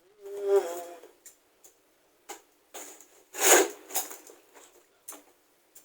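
Parcel packaging being handled and opened by hand: a string of uneven rustles and crackles, the loudest about three and a half seconds in. A brief voiced sound comes near the start.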